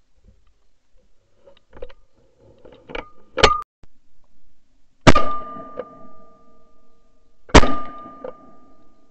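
Shotgun fired twice at a flying pheasant, the shots about two and a half seconds apart, each a loud crack with a ringing tail, heard from a camera clamped to the gun's barrel. A shorter, sharp crack comes about a second and a half before the first shot.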